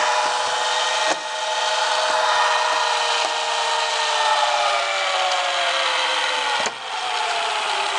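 Sharp VC-M530 VCR rewinding a cassette: the tape transport and reel motor whir steadily, the pitch slowly falling, with two short dips in level, about a second in and near the end.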